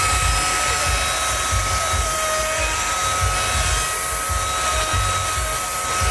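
Petrol chainsaw running at steady high revs with a constant whine while carving into an upright pine log.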